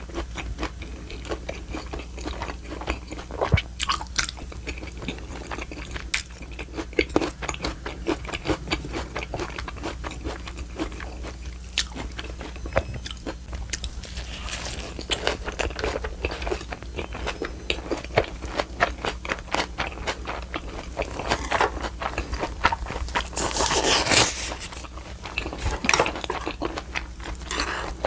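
Close-miked chewing and biting of a meal of spicy raw oyster salad and boiled pork, with frequent small crunches and wet clicks. There is a louder noisy stretch about 24 seconds in.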